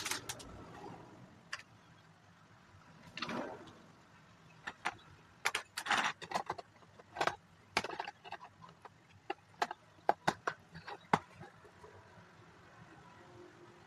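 Small plastic Lego pieces clicking and clattering as they are handled and pressed together, in quick irregular taps, with a short rustle at the start and another about three seconds in.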